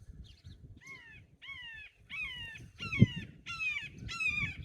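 A hawk calling: a series of about six short, pitched screams, each sliding down in pitch, repeated roughly every half second from about a second in. A single low thump comes about three seconds in.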